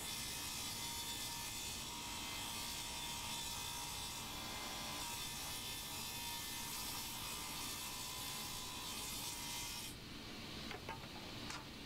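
Table saw and shop vacuum dust extraction running, a steady whir with a hiss and a few faint whining tones. The hiss cuts off about ten seconds in, leaving a quieter low noise and two light clicks.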